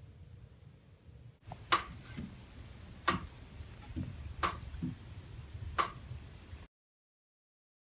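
Four sharp ticks, evenly spaced a little over a second apart, over a low background murmur. The sound then cuts off to dead silence.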